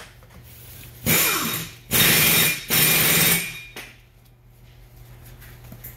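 Three short, harsh bursts of mechanical tool noise in quick succession, starting about a second in, over a low steady hum.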